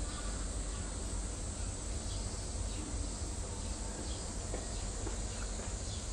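Outdoor ambience of insects buzzing steadily in a high, continuous drone, over a low rumble, with a few faint ticks.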